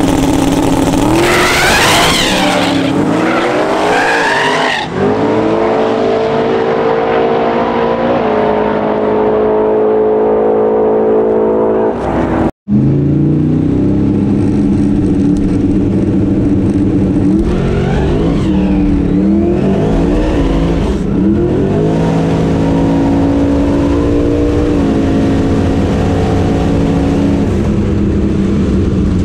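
Twin-turbo 427 cubic inch LS V8 of a drag-racing Camaro at full throttle on a pass, its pitch climbing and then dropping back at each gear change. About twelve seconds in, the sound cuts out for an instant and resumes from inside the car, where the engine pitch again climbs and drops several times.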